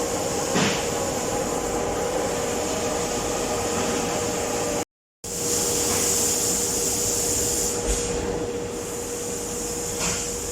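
Lathe machine running steadily: a constant mechanical hum and hiss with a couple of light knocks. The sound drops out briefly to silence about five seconds in, then carries on the same.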